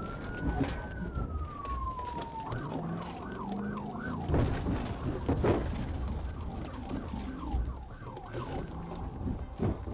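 Police car siren: a slow wail rises and falls, then switches about two and a half seconds in to a fast yelp that sweeps up and down a few times a second. Under it the patrol car's engine runs, with several sharp knocks.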